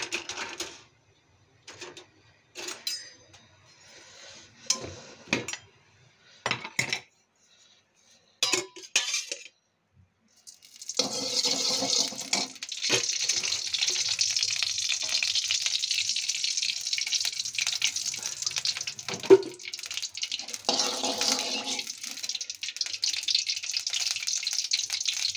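Cooking on a gas stove with a steel kadai: short clicks and knocks as the stove is lit and the pan is handled, then from about ten seconds in a steady hiss. Over the hiss, cooking oil is poured into the pan and a metal spoon clinks against it, once sharply.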